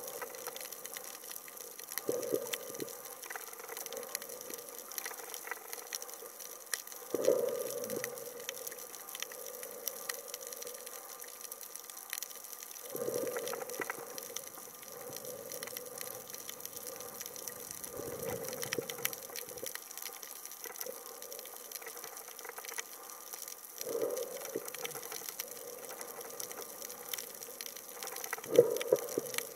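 Underwater sound through a submerged camera: a steady hiss, with a rushing whoosh of water about every five seconds, six in all, each starting sharply and fading over about a second.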